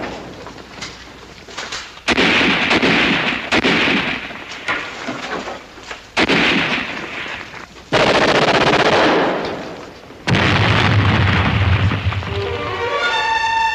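Battle sound effects: a series of sudden loud blasts, each with a ragged rumbling tail lasting a second or two, with sharp gunshots between them. Orchestral music comes in near the end.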